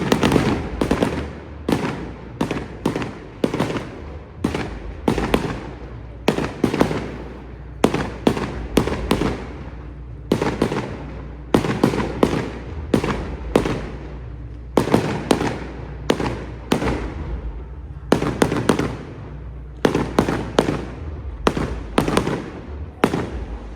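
Fireworks display: a continuous, irregular barrage of sharp bangs, roughly one to two a second, each with a short echoing tail.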